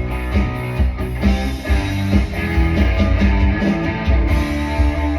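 Live band playing rock music, electric guitar and drum kit, with no singing, the notes settling into a held chord near the end.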